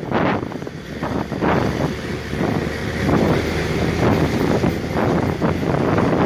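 Open military jeep driving along a lane, its engine and road noise mixed with wind buffeting the microphone in gusts.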